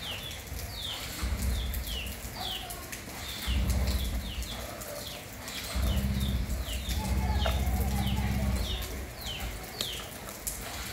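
Small birds chirping steadily in the background: short high chirps that fall in pitch, about two a second. Under them a low rumble swells several times for a second or more, loudest from about six to eight and a half seconds in.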